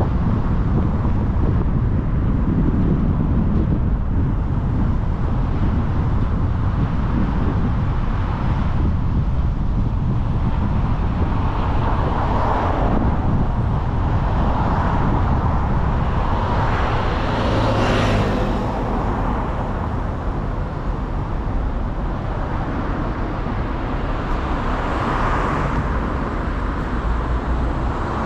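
Steady road and wind noise of a car driving along a city street, a low rumble of tyres, with other cars swelling past now and then; the loudest and closest passes a little past halfway.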